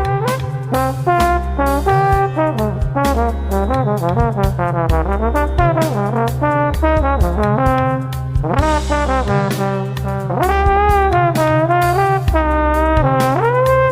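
Upbeat background music: a brass-led melody with sliding notes over a steady bass line and beat.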